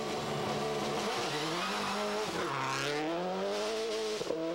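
Subaru Impreza WRC rally car's turbocharged flat-four engine pulling away from a stage start. It runs steadily for about a second, then climbs in pitch, drops sharply at an upshift about two and a half seconds in, and climbs again to another shift near the end.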